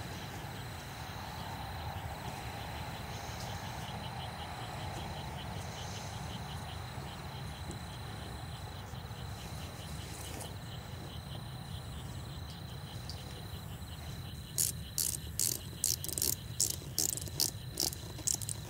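Crickets chirping steadily in the dark, an even pulsing trill. From about three-quarters of the way in, a run of short, sharp, scratchy rasps, about three a second, is louder than the insects.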